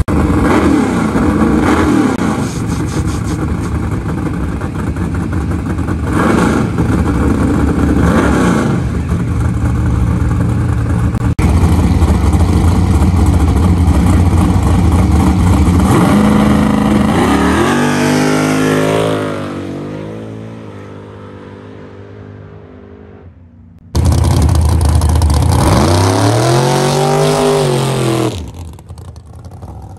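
Two drag-race cars sitting on the line with engines running loud and blipping the throttle, then launching hard and accelerating away, the engine pitch climbing and falling as they fade into the distance. After an abrupt cut, a car accelerates hard past with the same rising-then-falling engine note.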